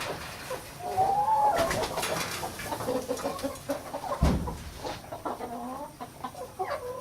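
Chickens clucking, many short overlapping calls with a longer one about a second in. A low thump sounds a little past four seconds.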